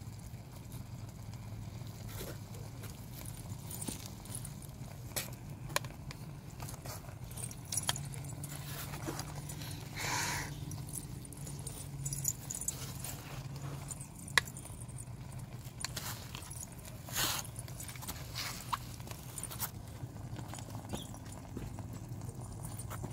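Miniature steel tongs clinking against a small steel bowl and pan as raw chicken pieces are picked up and dropped in: scattered light metallic clicks over a low steady hum.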